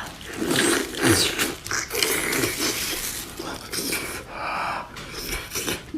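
A person eating seafood close to the microphone: irregular wet chewing and mouth sounds with breathing.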